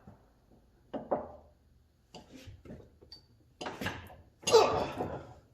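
Metal tools and hydraulic cylinder parts being handled on the bench: a series of separate clanks and scrapes, the loudest about four and a half seconds in.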